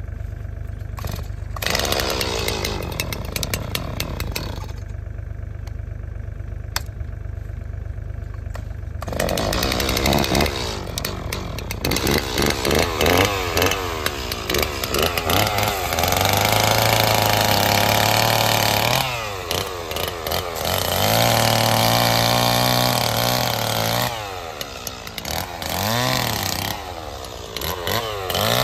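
Two-stroke Stihl chainsaw being started, with short bursts in the first few seconds before it runs steadily from about nine seconds in. It then revs up and down and is held at high revs for a few seconds at a time while cutting through an oak limb.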